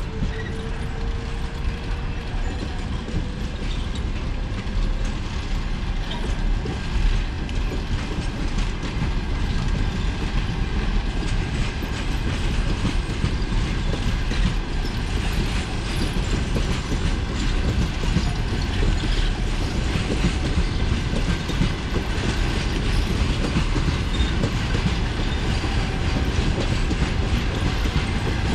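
Passenger coaches of a departing train rolling past, wheels clicking over the rail joints above a steady low rumble. A faint rising whine sounds in the first few seconds.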